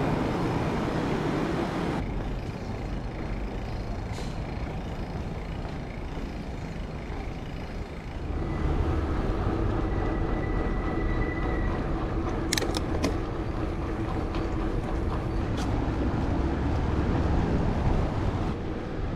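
Wind rushing over a handlebar action camera's microphone, with tyre and road noise from a mountain bike being ridden. A steady hum joins about a third of the way in, and a few sharp clicks come near the middle.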